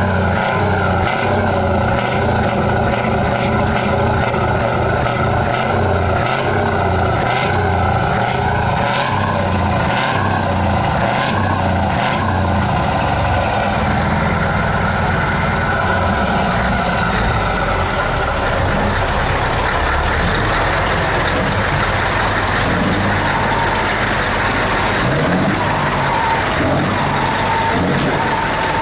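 A Scania truck's diesel engine running loud through its open, free-flow side exhaust pipe, with a regular pulse about one and a half times a second for the first half, then smoother. A faint whistle falls in pitch around the middle.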